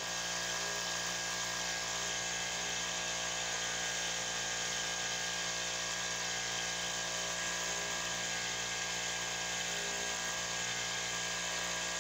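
A boat engine running steadily, a constant mechanical hum that holds the same pitch and level throughout.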